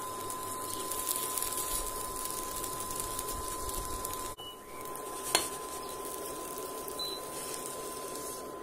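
A thin crepe sizzling in a hot non-stick frying pan as it is lifted, flipped with a spatula and slid out, with a single sharp knock about five seconds in. A steady high-pitched tone runs underneath and stops near the end.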